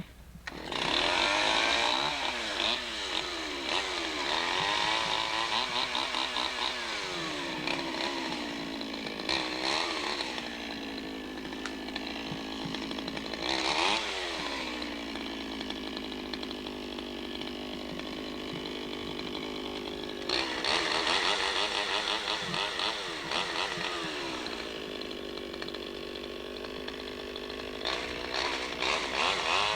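Two-stroke chainsaw cutting wood, coming in loud about a second in and then revving up and down repeatedly, with several stretches at full throttle.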